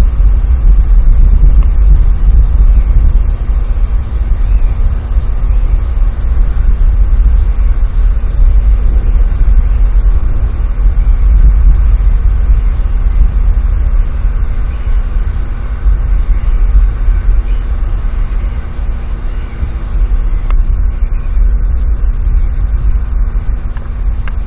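Steady low rumble of wind buffeting an outdoor webcam microphone, with a faint steady hum underneath.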